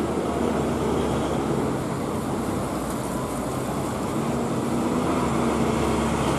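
Heavy dump truck's diesel engine pulling hard uphill, a steady drone mixed with traffic noise, its pitch rising slightly near the end.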